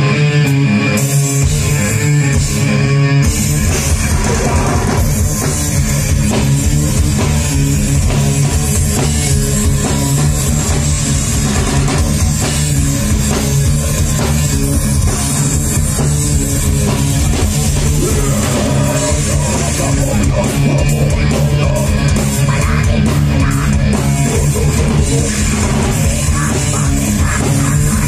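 Live heavy rock band playing loud and steady, with electric guitars and a drum kit. The deep low end comes in fully about a second and a half in.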